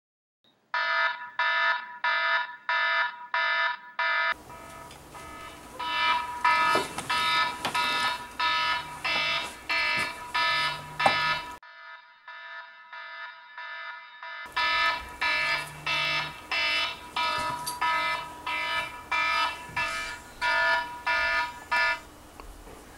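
Electronic alarm clock beeping, a steady pitched beep about twice a second. For a few seconds midway the beeping turns thin and muffled, and it stops shortly before the end.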